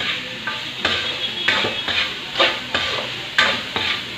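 Metal spatula stirring and scraping sautéed milkfish meat and vegetables around a wok, with sharp scrapes every half second to a second over a steady sizzle of frying.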